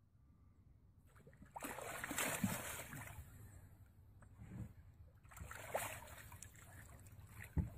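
Water splashing in two bursts as a large fish strikes at a hand held at the surface and thrashes while it is grabbed and lifted out by the mouth; the first splash comes about a second and a half in, the second about five seconds in, with a dull thump just before the end.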